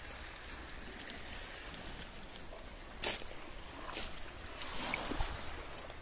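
Steady low rumble of outdoor air noise on a phone microphone. A sharp click comes about three seconds in, and a stretch of rustling follows near the end as the phone brushes past dry grass stalks.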